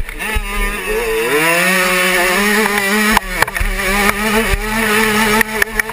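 An 85cc Suzuki two-stroke motocross engine revving up and down under throttle at race pace, heard from on the bike. The pitch rises about a second in, and a few sharp knocks come near the middle and near the end.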